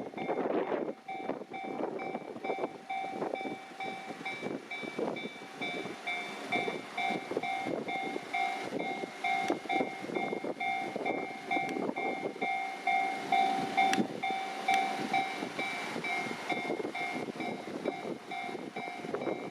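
Japanese railway level-crossing warning bell ringing in a fast, steady repeating ding. Under it a train passes with its wheels clattering, and there is a sharp clank about 14 seconds in.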